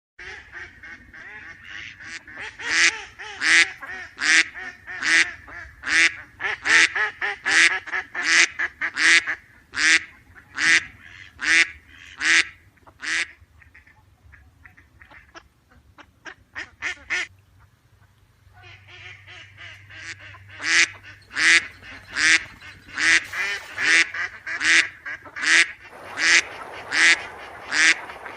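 Duck quacking over and over, about two loud quacks a second. Partway through the calls drop to a fainter, quicker stretch, then the loud quacking starts up again.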